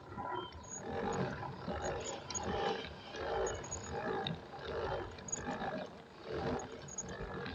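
Rhythmic whooshing pulses, about one every three-quarters of a second, from pedalling a pedal boat.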